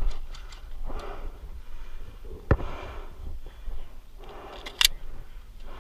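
An airsoft Glock pistol being reloaded, with two sharp clicks: a loud one about two and a half seconds in and a higher, brighter one near the end. Heavy breathing sounds through.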